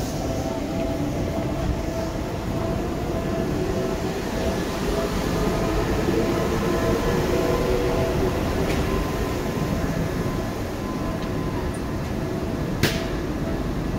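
Seibu 2000 series electric train running, heard inside the car: a steady wheel and motor noise with faint steady tones, and one sharp click near the end.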